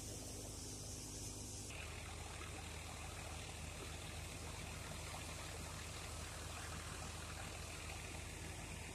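A tractor engine drives a tractor-drawn straw reaper through wheat stubble: a steady low engine drone under an even rushing noise of machine and blown chaff. The mix changes slightly about two seconds in.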